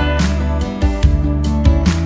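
Background music: an upbeat track with guitar and a steady beat.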